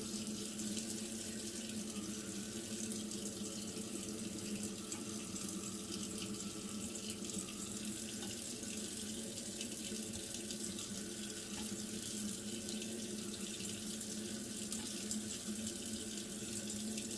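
Knife blade being stroked back and forth on a wet Eden Professional 2000 whetstone, a steady wet scraping hiss as the edge is cleaned up.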